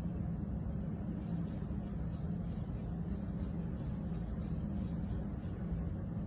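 Hand trigger spray bottle spritzing a tyre: about a dozen short, sharp hissing squirts in quick succession, roughly three a second, starting about a second in and stopping near the end. A steady low rumble of background noise runs underneath.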